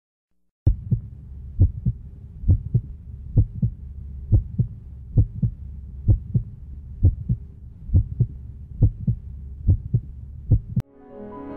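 Heartbeat sound effect: a steady double thump, about one beat a second, that starts after a moment of silence and cuts off suddenly near the end as music comes in.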